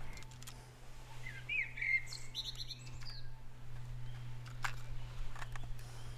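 A bird chirping in a short run of quick rising and falling calls about a second in, over a steady low hum. A few sharp clicks come near the start and again in the second half.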